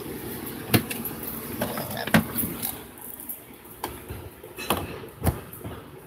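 Several sharp knocks and clicks over a low, steady background rumble, from a handheld phone being moved about and bumping against things.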